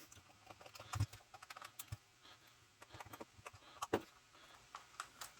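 Scattered light clicks and taps of hard plastic parts being handled while a toy's casing is worked open, with a louder knock about a second in and another about four seconds in.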